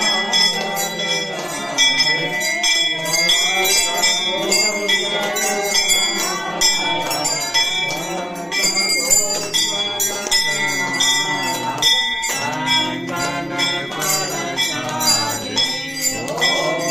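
Brass temple bell rung over and over, ringing on steadily, while a group of women sing a devotional hymn and clap along.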